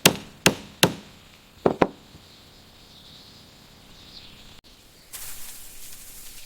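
A series of sharp knocks, five in the first two seconds, like blows on wood, followed by a low steady hiss from about five seconds in.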